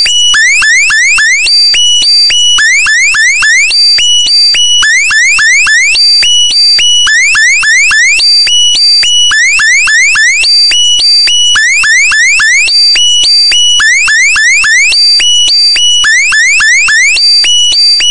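Electronic alarm sound effect: runs of quick rising chirps alternating with held steady beeps, the cycle repeating every couple of seconds, very loud.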